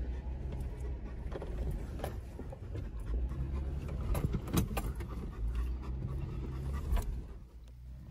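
Off-road 4x4 crawling over a rocky trail: steady low engine and drivetrain rumble with frequent knocks, clunks and rattles as it bounces over the rocks. The sound drops off about seven and a half seconds in.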